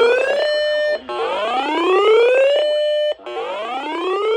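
Electronic alert tone of an emergency alert broadcast: a buzzy whoop that rises in pitch, holds briefly at the top, cuts off, and repeats about every two seconds.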